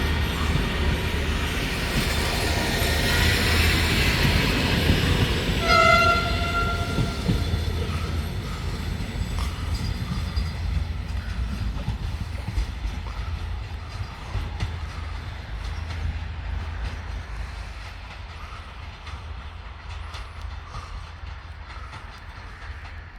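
DPKr3 diesel multiple unit running past with engine and wheel noise, sounding one short blast on its typhon horn about six seconds in. The train noise then fades steadily as it moves away.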